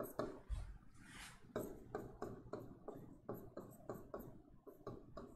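Handwriting on a board: a run of short, faint pen or marker strokes, a few each second, as a line of words is written.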